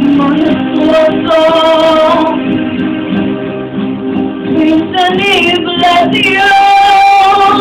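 A boy singing into a microphone, holding notes with vibrato, over live band accompaniment with drums and guitar.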